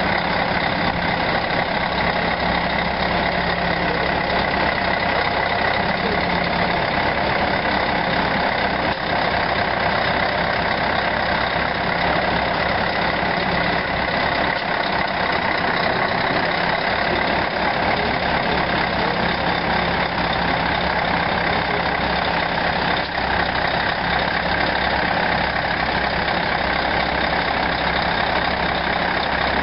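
Scania 164L 530's 15.6-litre V8 diesel engine idling steadily, with no revving.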